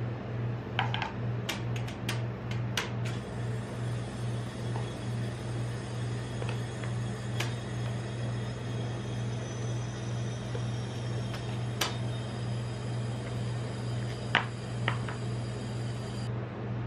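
Steady low hum of the rolled ice cream machine's refrigerated cold plate running, with sharp clicks and scrapes of a metal spatula on the steel plate, several in the first few seconds and a few more later on.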